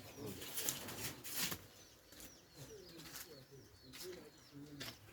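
Birds chirping and calling, with low cooing calls and a few faint clicks.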